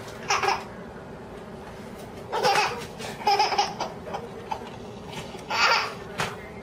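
A baby laughing in several short bursts of giggles, with a steady faint hum underneath.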